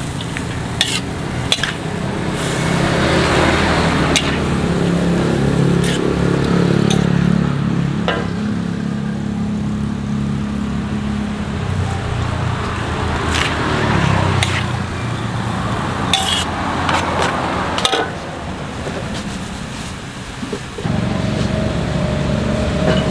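Metal spatula scraping and clinking against a steel wok as noodles and bean sprouts are stir-fried, over a steady sizzle. A motor engine hums in the background, stepping up near the end.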